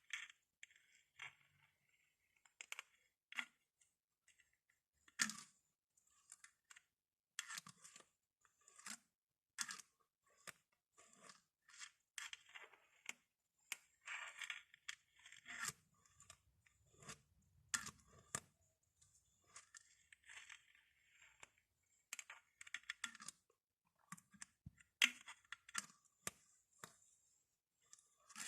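Glass bottles being handled at close range: irregular sharp taps and clinks, a few every second, with short stretches of scratching or rubbing against the glass.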